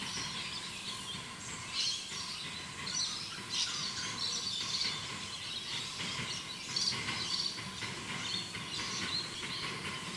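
Birds chirping and calling again and again, over a low steady background noise.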